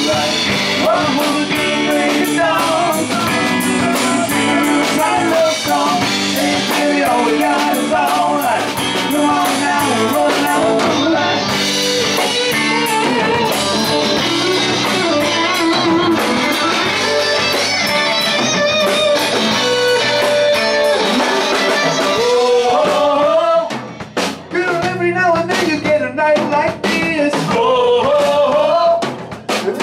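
Live bar band playing a country-rock song: lead singing over electric guitars, bass guitar and drums. Near the end the band drops into short, choppy hits with gaps between them while the singing goes on.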